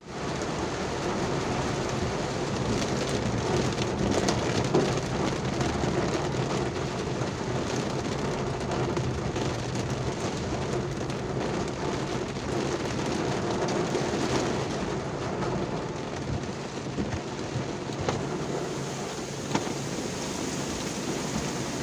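Heavy rain pouring steadily: a dense, even hiss of falling drops, with a few sharper single drop hits now and then.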